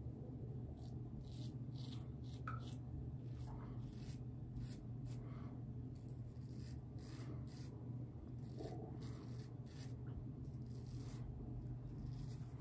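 Muhle R41 double-edge safety razor scraping through lathered stubble on the neck in many short, quick strokes, each a brief rasp.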